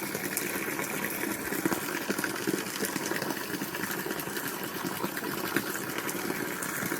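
Water running steadily, with a fast fluttering rattle underneath.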